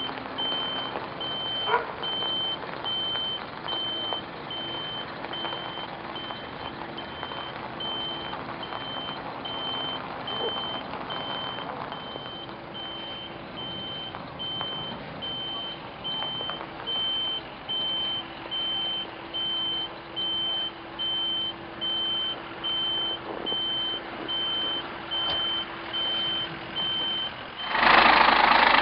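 Fire apparatus warning beeper sounding a steady high beep about every 0.8 s over the low running of engines and pumps. Near the end a much louder, steady engine noise takes over.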